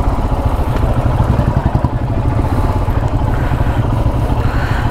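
Motorcycle engine running steadily at low speed, with a rapid low pulsing.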